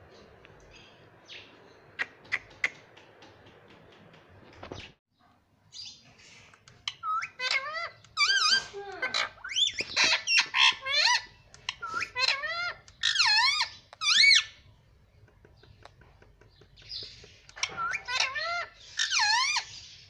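Indian ringneck parrot calling and chattering in runs of shrill, warbling notes that swoop up and down in pitch, starting about a third of the way in and again near the end. A few sharp clicks come about two seconds in.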